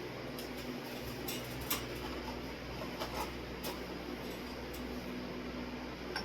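Steady low hum of an electric fan running, with a few faint clicks and taps scattered through it.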